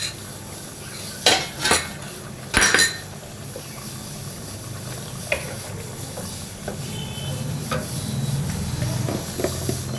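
A few sharp clatters of kitchen utensils in the first three seconds, then a curry simmering in a non-stick kadai on a gas stove, growing a little louder, with a wooden spatula stirring and scraping in the pan near the end.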